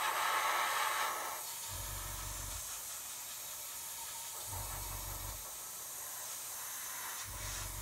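Iwata airbrush spraying, a steady hiss of air held on without breaks, a little stronger for the first second or so. A low hum comes and goes about every three seconds underneath.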